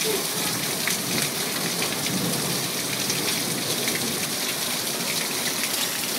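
Heavy rain pouring down onto a street and parked cars in a thunderstorm: a steady, even hiss of rain on wet surfaces.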